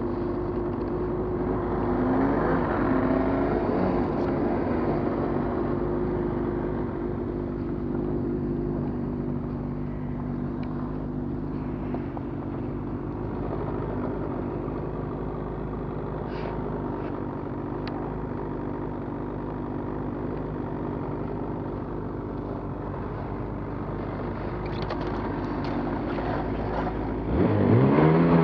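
Snowmobile engine idling steadily, then revving up suddenly with a rising pitch about a second before the end.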